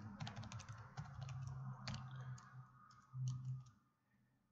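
Computer keyboard being typed in quick, uneven key clicks, stopping about three and a half seconds in.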